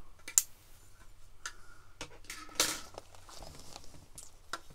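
Light clicks and clatter of small craft pieces being handled and set down on a tabletop, with a brief rustling scrape about two and a half seconds in, the loudest sound.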